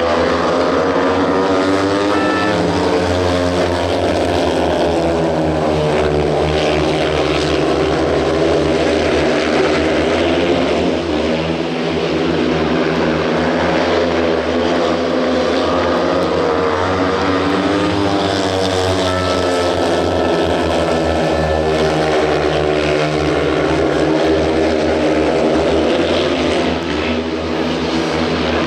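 Four speedway motorcycles racing, their 500cc single-cylinder methanol engines running loud and unbroken, the pitch rising and falling again and again as the riders open and shut the throttle between straights and turns.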